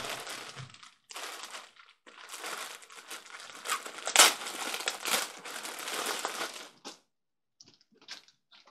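Packaging being crinkled and torn open by hand in rustling bursts. It stops about seven seconds in, leaving a few faint clicks.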